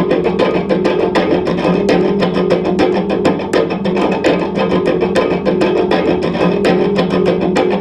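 Amplified cello struck and plucked rapidly by hand: a dense, uneven run of sharp taps, many a second, over a steady sustained hum from the instrument feeding back.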